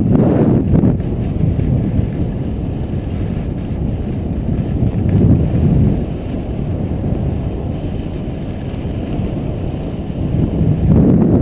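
Wind buffeting an action camera's microphone during a fast descent on a groomed piste, a steady low rumble that swells a few times, with the scrape of the run over the snow underneath.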